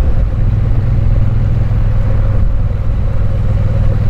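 Triumph Bonneville's parallel-twin engine running at a steady pitch as the bike cruises.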